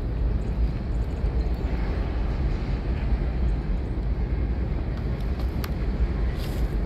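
Freight train of covered hopper cars rolling past on an elevated line: a steady, low rumble of wheels on rail, with a few faint clicks late on.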